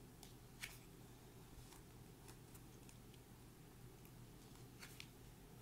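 Faint ticks and rustles of a paper photo book's pages being handled and turned, the clearest about half a second in and near the end, over a low steady room hum.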